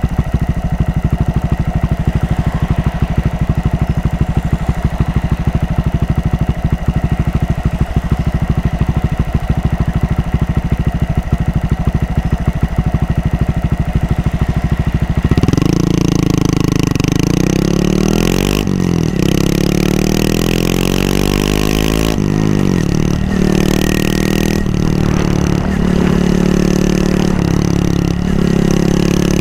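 Honda Monkey 125's single-cylinder four-stroke engine runs steadily at low revs for about fifteen seconds. Then it pulls away, its pitch rising and falling over and over, with short breaks at each gear change.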